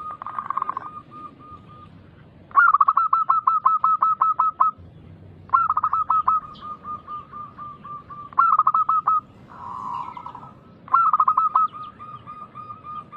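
Zebra dove (perkutut) song: repeated phrases of quick staccato cooing notes, each phrase a fast run of notes trailing off. About four loud phrases come in turn with short gaps, among softer ones.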